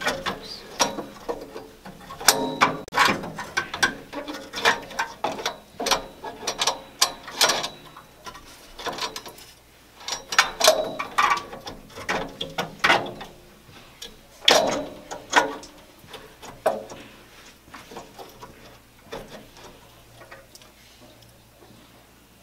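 Metal burner tubes and grill parts of a Weber gas grill clinking and rattling as they are handled and worked into place. The sound is a run of irregular sharp clicks and clanks that thins out over the last few seconds.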